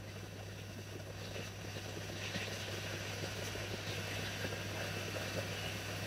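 SUGON 8610DX hot air rework gun blowing steadily on a small shorted capacitor to desolder it from a laptop motherboard, over a constant low hum.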